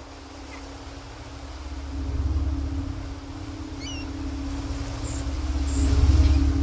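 Low rumble and steady hum of a moving vehicle heard from inside its cabin, growing louder and peaking near the end, with a few brief high squeaks about four seconds in.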